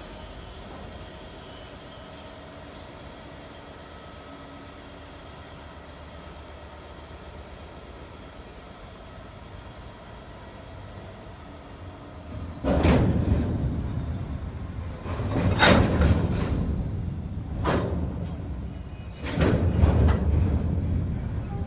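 A train running on the rails: a steady high whine for the first twelve seconds or so. Then, about two-thirds in, the noise jumps suddenly and comes in four loud swells of wheel-and-rail noise.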